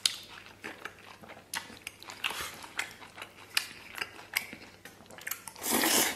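Close-up eating sounds: wet chewing and lip smacks on braised beef brisket and rice, many short clicks throughout. Near the end comes a louder, noisy slurp as a spoonful goes into the mouth.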